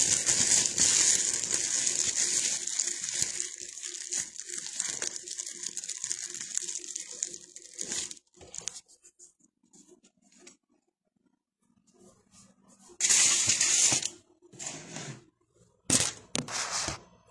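Aluminium foil being crinkled and torn close to the microphone for about eight seconds, then quiet, then two shorter bursts of crinkling near the end.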